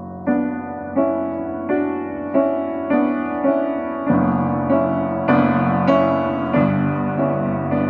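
Solo piano improvisation: notes and chords struck at a steady pace, about one every 0.7 seconds, each ringing and decaying. Deeper bass notes join about four seconds in.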